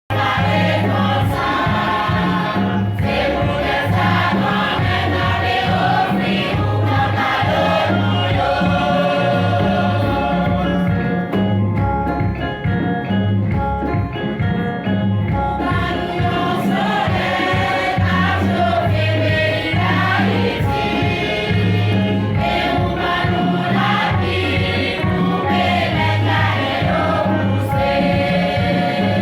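Choir singing a gospel hymn over instrumental backing with a steady, repeating bass line.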